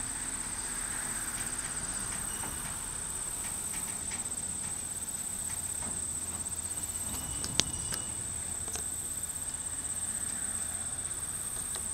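Crickets trilling steadily in a high, continuous pulsing buzz over a faint low rumble, with one sharp click about seven and a half seconds in.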